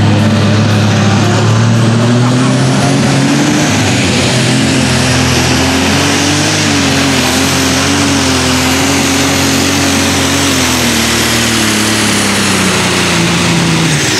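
Super stock pulling tractor's engine running at full power down the track. Its pitch climbs in the first couple of seconds, holds high, then sinks over the last few seconds as the pull comes to an end.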